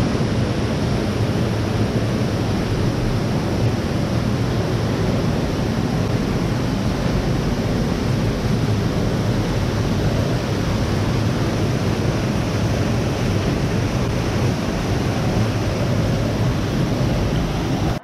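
Man-made waterfall pouring down a stone wall: a steady rush of falling water.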